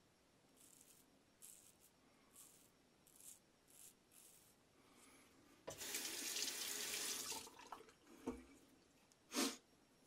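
A tap running into a sink for about two seconds, most likely rinsing the straight razor between passes. A few short soft hisses come before it, and a knock and a brief hiss follow.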